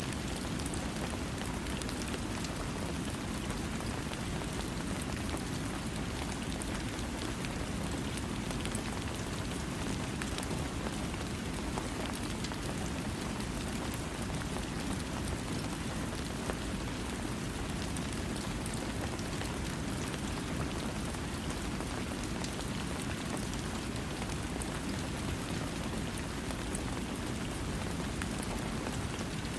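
Steady rain falling, an even patter of drops with no thunder.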